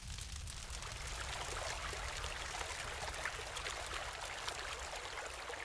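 A fine jet of water spraying onto a plastic toy castle: a steady hiss with many small droplets spattering, building about a second in.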